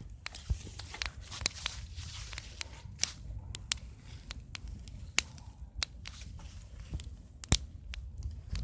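Wood fire crackling: irregular sharp pops and snaps, a few much louder than the rest, over a steady low rumble.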